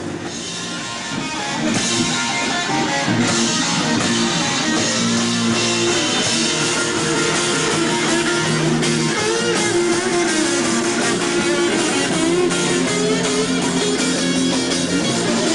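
Live rock band warming up, with strummed electric guitar over a drum kit. It grows louder about two seconds in, then plays on steadily.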